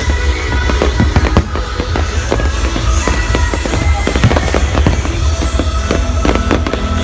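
Fireworks bursting and crackling in quick succession over loud music with a heavy bass.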